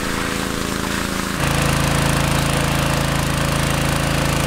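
Small engine of a portable water pump running steadily. About a second and a half in, the sound jumps louder and lower, then runs on evenly.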